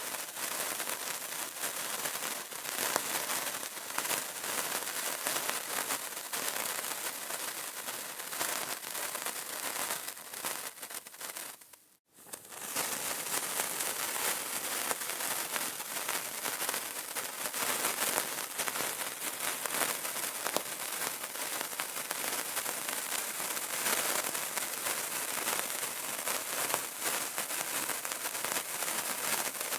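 Burning candle crackling, a dense, continuous patter of fine crackles. About twelve seconds in it fades almost to silence for a moment, then comes straight back.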